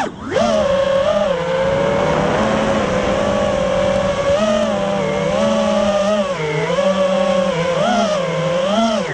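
5-inch FPV quadcopter's brushless motors (XING X2207) whining as it flies, the pitch swinging up and down with the throttle. A sharp rise to a high whine right at the start breaks off suddenly, then the motors keep on with repeated swells.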